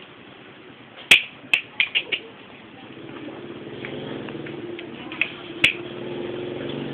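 A quick run of sharp clicks about a second in and one more near the end, over a steady hum with several tones that grows in from about three seconds.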